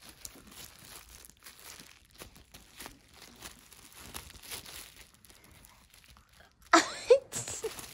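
A Maltese dog chewing and tugging at a plastic water bottle, the thin plastic crinkling and crackling in irregular bursts. Near the end a short, loud voice-like sound cuts in.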